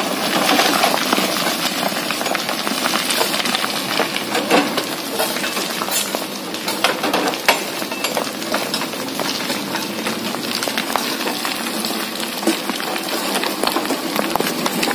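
Loose fill soil and stones pouring off a dump truck bed onto a pile during unloading: a steady dense crackle with frequent sharp clicks of stones striking.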